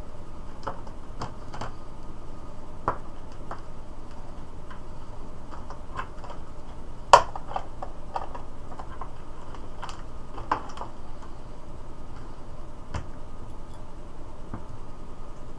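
Scattered small clicks and taps of PCBite test probes and their heavy magnetic holders being handled and set on a circuit board, with one sharper click about seven seconds in, over a steady hiss.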